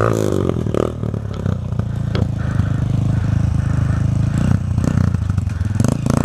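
Single-cylinder four-stroke trail motorcycle engine running steadily at low revs, with some light clatter.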